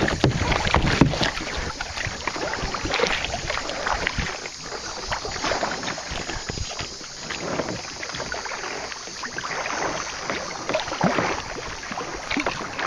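Kayak paddling: paddle blades dipping and splashing in the water, with water washing along the kayak's hull.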